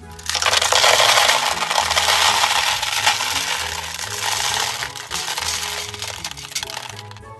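Sugar-coated chocolate candies pouring out of a round container into a plastic toy bathtub: a dense, rapid clatter of many small hard pieces. It starts just after the beginning and thins out toward the end.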